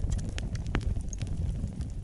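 Wood fire burning in a fireplace: a low steady rumble of flames with scattered sharp crackles and pops.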